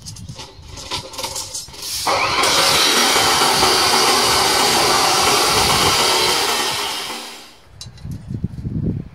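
Abrasive cut-off chop saw cutting through a bundle of steel rebar: a loud, harsh grinding starts sharply about two seconds in, holds steady for about five seconds, then dies away as the cut finishes.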